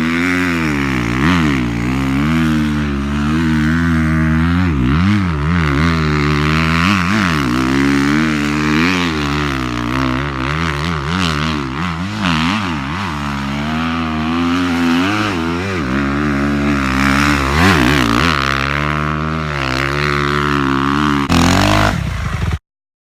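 Dirt bike engine revving hard, its pitch climbing and dropping again and again as it goes through the gears. It cuts off abruptly near the end.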